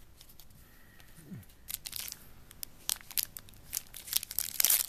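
Crinkling and tearing of a foil trading-card pack wrapper being opened by hand: irregular crackles that start about one and a half seconds in and grow busier and louder toward the end.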